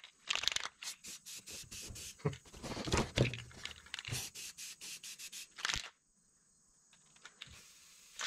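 Aerosol spray paint can being shaken and sprayed: a run of short, irregular rattles and hisses that stops about six seconds in.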